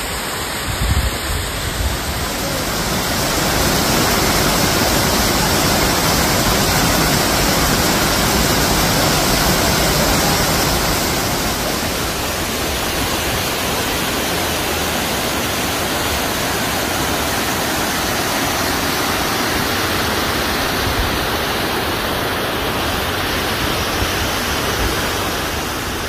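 Waterfall cascading down a rock face and splashing over boulders: a steady, loud rush of water.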